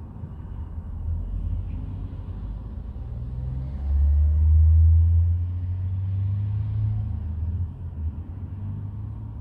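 A vehicle engine running with a low rumble, swelling louder about four seconds in and easing back about three seconds later.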